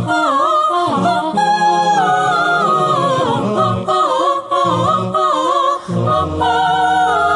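Wordless, ornamented singing from an Arabic song: a voice winding up and down in long melismatic runs over a low held bass note.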